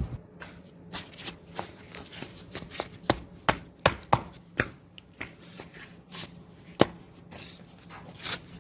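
A series of sharp, irregular knocks and taps, about one or two a second, several of them louder than the rest, over a faint low hum.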